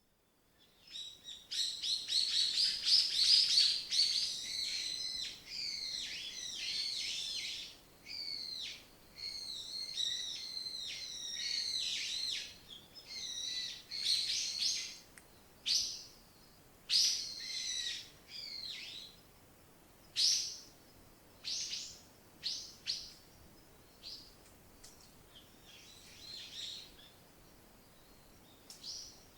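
Songbirds singing: starting about a second in, a dense run of quick warbling, trilling song for the first dozen seconds, then thinning to separate short calls and phrases.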